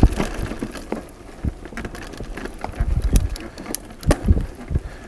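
Mountain bike riding fast down a dirt forest singletrack: scattered clicks and rattles from the bike over the rough ground, with heavier thumps from jolts about three and four seconds in.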